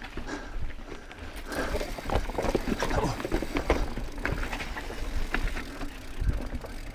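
Evil mountain bike rolling fast over a rocky singletrack: tyres crunching over rock and grit, with irregular knocks and rattles from the bike, over a low rumble of wind on the camera microphone.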